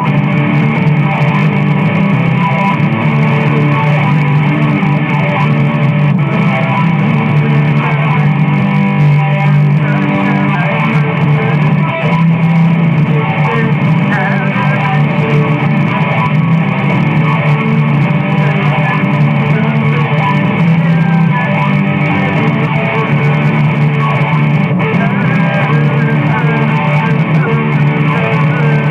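Loud rock music carried by guitar and bass, an instrumental stretch with no singing, running steadily.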